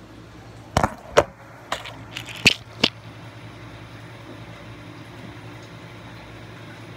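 Five or six knocks and bumps in the first three seconds as the phone is handled and set down, then a steady low refrigerator hum.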